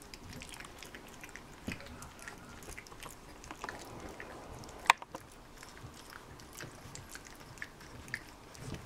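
Two-week-old Bernese mountain dog puppies mouthing and nuzzling each other, making scattered small clicks and mouth sounds, with one sharp click about five seconds in.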